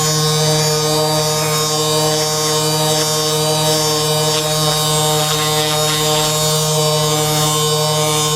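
A small electric motor buzzing steadily at one unchanging pitch.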